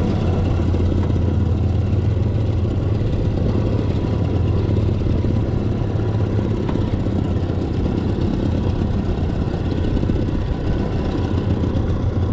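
An engine idling, a steady low drone with no change in speed.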